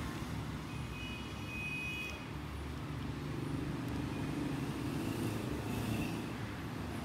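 Steady low rumble of background noise, with a faint high tone about a second in.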